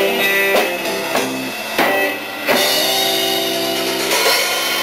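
Live band with drum kit and guitar playing the end of an instrumental outro: a few hard drum accents, then a long held chord with cymbals ringing over it.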